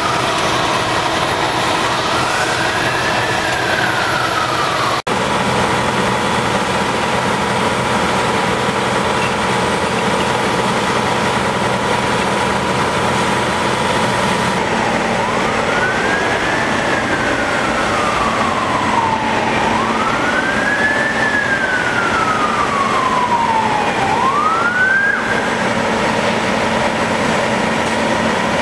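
Fire truck siren on a slow wail, rising and falling between high and low pitch, once near the start and then three more cycles that stop about 25 seconds in. Under it, the steady drone of fire trucks' engines running.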